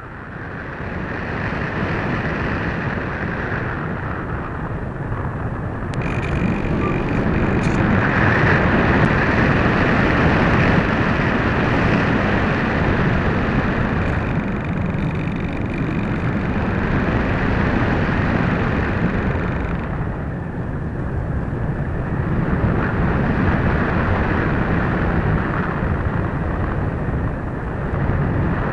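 Airflow rushing over the onboard camera's microphone on an RC model plane in FPV flight, a steady noisy rush that swells over the first couple of seconds. A faint high whine sits on top from about six seconds in until about twenty seconds in.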